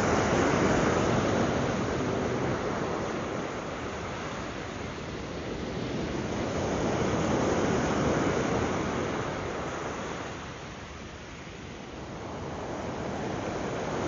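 Surf breaking and washing up a sandy beach, a steady rush of water that swells and ebbs with each wave, loudest near the start and midway, easing off near the end before building again.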